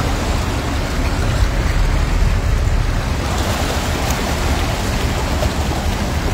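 Car driving through deep floodwater: a steady rushing splash of water against the car with a deep rumble beneath it.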